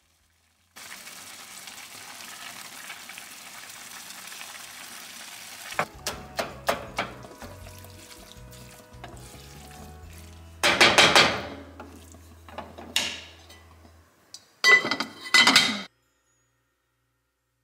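Ground turkey sizzling in a frying pan, then a wooden spoon knocking and scraping against the pan as the meat is broken up. Near the end come a few loud rustling bursts, the last as broccoli is tipped from a plastic bag into an air-fryer basket.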